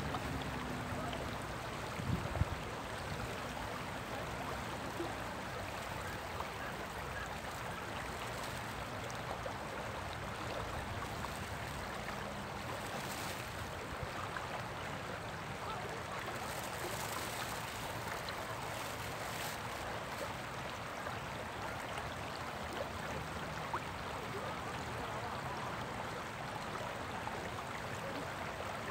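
Shallow river riffle rushing over rocks, a steady even rush of moving water, with a brief low thump about two seconds in.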